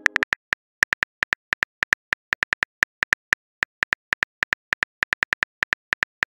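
Phone keyboard typing clicks as a text message is typed: short sharp ticks, about five a second at an uneven pace.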